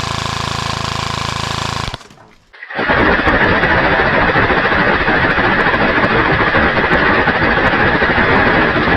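Battery-powered airsoft gun (AEG) firing full-auto in two long bursts: a steady buzzing burst that stops about two seconds in, then after a short pause a longer, denser burst that runs on.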